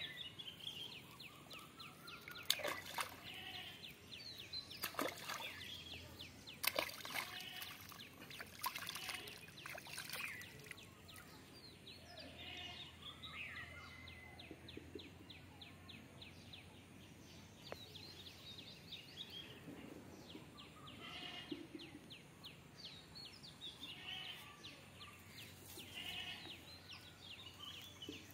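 Birds chirping and calling again and again, with rapid trilled chirps and short rising calls, over faint outdoor background noise.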